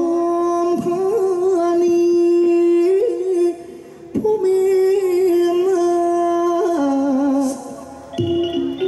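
A male likay performer singing into a microphone: long held notes with wavering, melismatic ornaments, in two main phrases with a short break about four seconds in and a lower phrase near the end.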